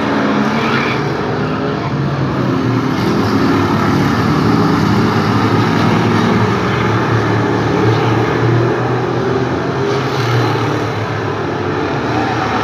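A pack of hobby stock race cars running laps, several engines going at once, loudest about halfway through as cars pass close by.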